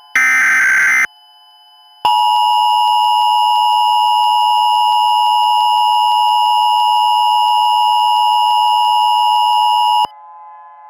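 Emergency Alert System tones. The last burst of the digital SAME header data lasts about a second, then after a short gap the two-tone attention signal (853 and 960 Hz sounding together) holds steady for about eight seconds and cuts off abruptly.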